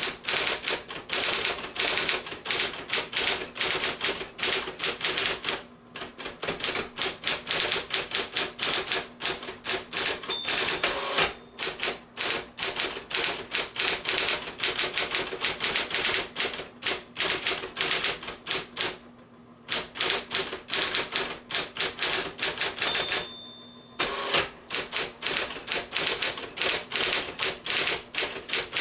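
1970 Sears Celebrity Power 12 electric typewriter, built by Smith-Corona, being typed on: fast, uneven strings of key strikes with a few short breaks. Its motor hums steadily underneath.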